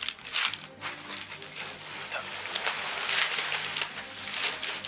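Crumpled newspaper packing paper crinkling and rustling in irregular bursts as it is handled and pulled out of a cardboard box, over background music.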